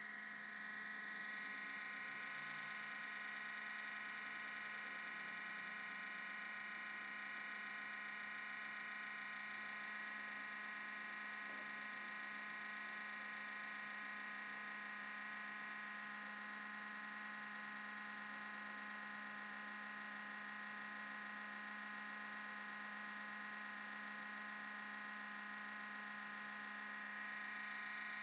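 MacBook Pro cooling fan running at high speed, a steady high-pitched whine with a lower hum beneath it. The fan racing at startup is the fault the owner hears, though the Apple store found nothing wrong.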